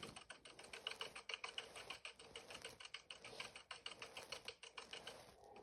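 Faint, rapid clicking of a toy cat piano's plastic keys being pressed over and over, about ten clicks a second, with no notes sounding because the piano is broken. The clicking stops just before the end.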